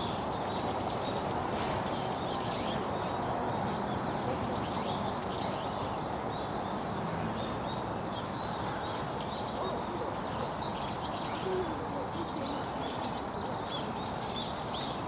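Many small birds chirping, their short high calls overlapping throughout, over a steady low background noise.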